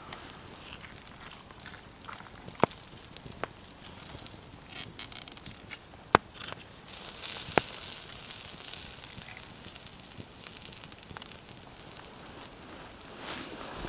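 Campfire crackling, with a few sharp pops and a brighter hiss from about seven seconds in.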